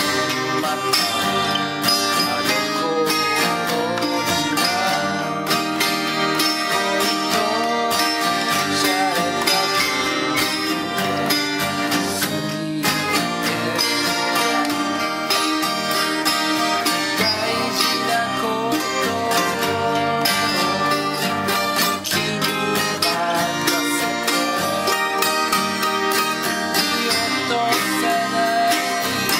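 Two acoustic guitars playing a song together, a Tacoma 12-string soprano guitar and a Lowden F10 steel-string guitar, with the strings picked and strummed throughout. A man sings along over them.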